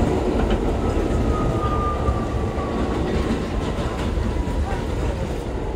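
Bombardier R62A subway car running along the track, heard from inside the car: a steady, dense rumble of wheels and car body. A faint high whine slides slowly down in pitch from about a second in to about four seconds in.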